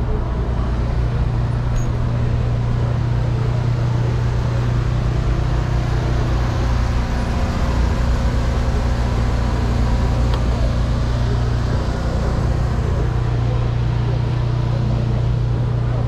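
Steady low rumble of wind and road vibration on a handlebar-mounted camera riding an electric scooter, with city traffic.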